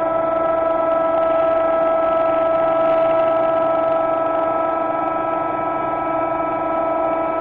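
Bridgeport milling head's spindle driving an end mill through UHMW plastic: a loud, steady machine whine of several held tones over a rough cutting noise.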